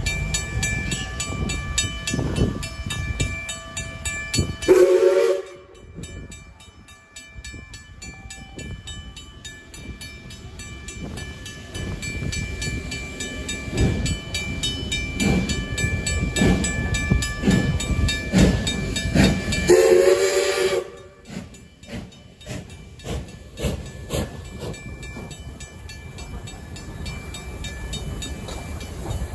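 Level-crossing bell ringing steadily while the steam locomotive Duke of Edinburgh approaches. Its steam whistle sounds two blasts of about a second each, about five seconds in and about twenty seconds in, and its exhaust beats grow louder as it reaches the crossing near the end.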